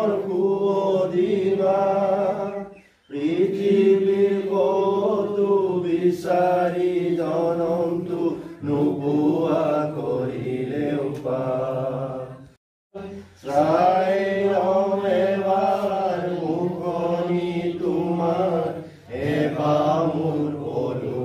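A group of men singing an anthem together in slow, sustained phrases, one voice led through a microphone, with brief pauses for breath between lines.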